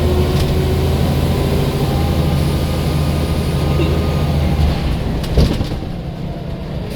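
Scania L94 single-decker bus's diesel engine running steadily under power, with a sharp clunk about five seconds in, after which the engine note drops and eases off.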